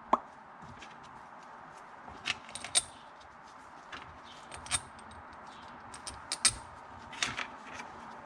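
Light clicks and clinks of a Keihin CDK II carburetor and its small metal parts being handled and fitted back together over a plastic parts tub, with about half a dozen sharper knocks scattered through.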